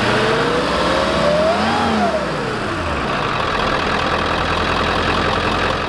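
Ford E350 van's 7.3 liter Power Stroke turbo diesel running, revved once: the pitch climbs for about a second and a half, then falls back to idle by about three seconds in and stays steady after that.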